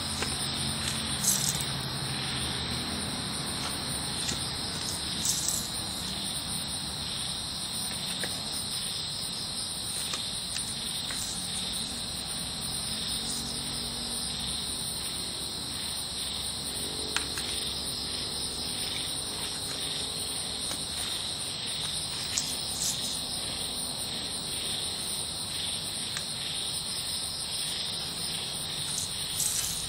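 A steady chorus of night insects, a high continuous trill, with a few soft taps as playing cards are shuffled and laid on a stone floor.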